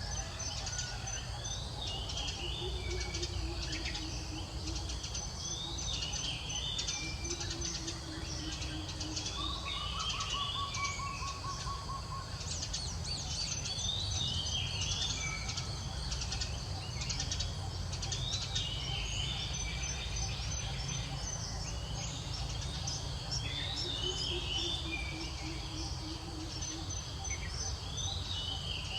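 Birds singing: a short warbled phrase repeats every three to four seconds, with a high thin trill now and then and a few lower whistled notes, over a steady low background rumble.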